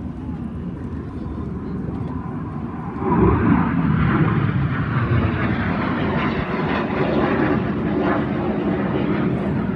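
Fixed-wing aircraft flying past in an air display. Its engine noise jumps up about three seconds in and stays loud.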